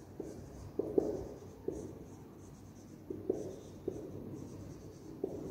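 Marker writing on a whiteboard: a series of short, irregular strokes and light taps as a word is written out.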